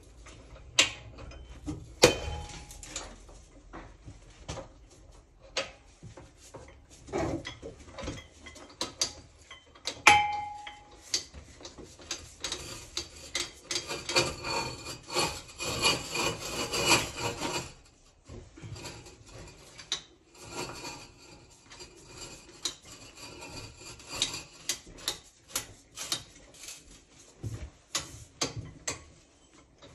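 Ridgid 246 ratcheting chain soil pipe cutter being worked on a cast iron vent stack: repeated ratchet clicks and metal clanks as the chain of cutter wheels is tightened around the pipe. One sharp, loud clank with a brief ring about ten seconds in, and a stretch of dense scraping and clicking in the middle.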